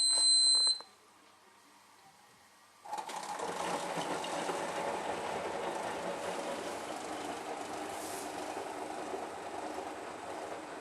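Hotpoint WMD940 washing machine: a high electronic beep lasting under a second, then near silence, and about three seconds in the machine starts up with a steady mechanical whirr that runs on. The machine has a fault: it will not drain and stops spinning when it tries to drain.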